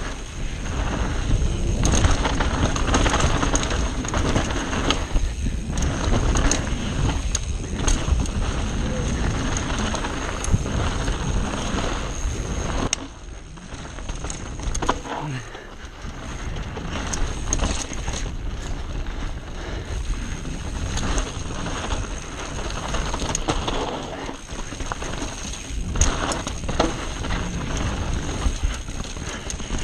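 Mountain bike ridden fast down a dirt downhill trail, heard from a camera on the rider or bike: wind rushing over the microphone, tyres on loose dirt, and the chain and frame clattering over bumps. It goes quieter for a few seconds about halfway through.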